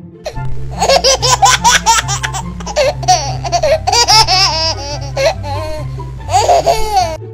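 High-pitched laughter in rapid bursts, running almost the whole time and stopping just before the end, over background music with a steady repeating bass line.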